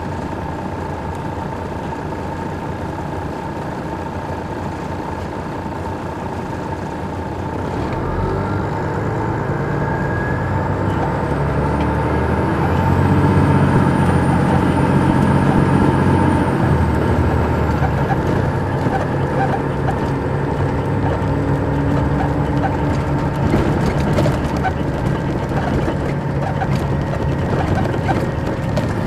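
Detroit Diesel Series 60 engine of an MCI D4000 coach, heard from on board. It runs steadily, builds up under acceleration from about 7 s in with a high whine that rises and then falls, and eases off about 17 s in before running on steadily.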